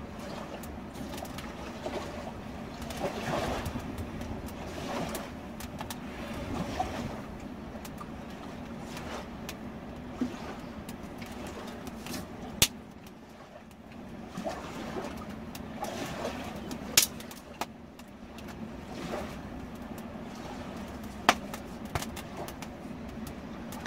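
Small stick campfire burning, with a few loud, sharp cracks standing out over a steady low rush of river water.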